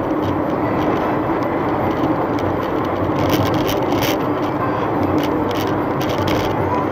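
Steady road and engine noise inside a moving vehicle's cabin at highway speed, with light rattles.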